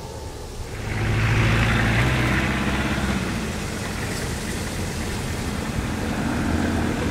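Old car's engine running as the car drives past and away, swelling about a second in and then running steadily.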